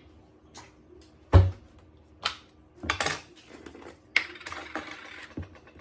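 Kitchen utensils and dishes clinking and knocking while a marinade is measured and mixed, about half a dozen separate knocks, the loudest about a second and a half in.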